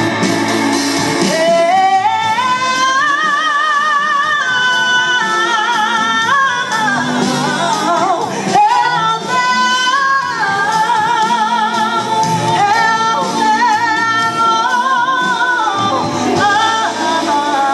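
A woman singing into a microphone, long held notes with a wide, wavering vibrato, with a brief break in the line about eight and a half seconds in.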